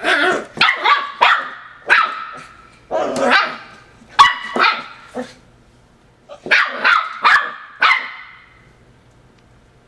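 Eight-week-old puppy barking in play at an empty plastic water bottle: a quick run of short, high-pitched barks, a pause of about a second, then a second run that stops about eight seconds in.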